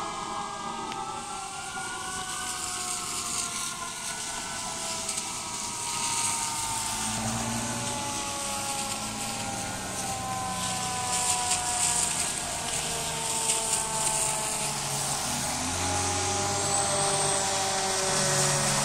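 A fire truck's siren wailing and slowly falling in pitch. A heavy fire truck engine rumbles in toward the end.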